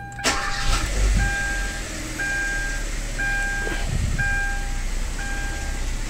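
2015 Kia Rio's rebuilt four-cylinder engine cranks and catches about a quarter second in, then runs steadily. This is its start with two new ignition coils fitted. A dashboard warning chime beeps about once a second over the engine.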